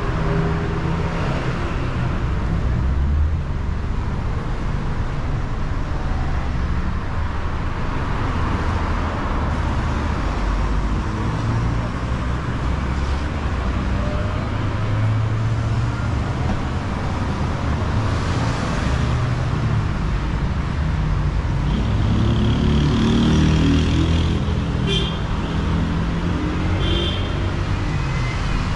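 Steady city-street traffic: cars driving past on a busy road, a continuous rumble and tyre noise, with a few brief high-pitched sounds near the end.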